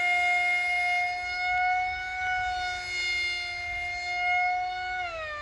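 HalfPipe RC parkjet's electric motor and propeller whining at full throttle, a steady high-pitched tone that drops in pitch near the end as the throttle comes back.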